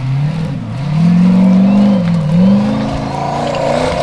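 Formula Offroad buggy's engine revving hard as it climbs a steep dirt bank on paddle tyres. The pitch rises and falls as the throttle is worked, with a dip about two seconds in before it climbs again.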